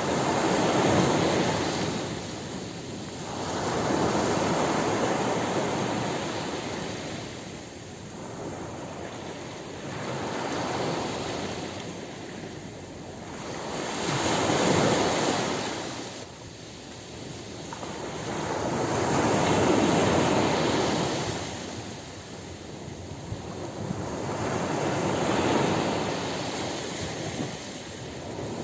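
Ocean surf breaking on a beach: a rushing wash of water that swells and fades with each wave, about one wave every four to six seconds.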